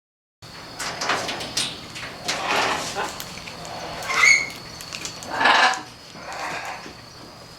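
Harsh, snore-like rasping calls from a neighbouring pair of parrots, repeated about once a second with a brief higher squeak partway through. This is the sound the pair makes when courting.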